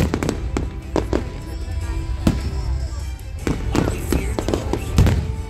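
Fireworks display: aerial shells bursting in a series of sharp bangs, the loudest about five seconds in, over music playing along with the show.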